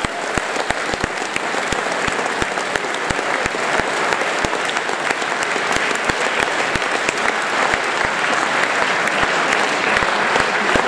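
A large audience applauding: dense, steady clapping from many hands, growing a little louder after a couple of seconds.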